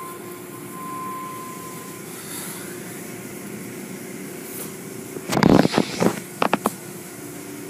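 Automated tunnel car wash machinery running with a steady hum. About five seconds in comes a loud burst of noise lasting about a second, then a few sharp knocks.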